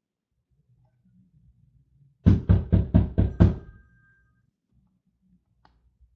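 Someone knocking on a door: six quick, loud knocks in a row, about four a second, starting a little over two seconds in.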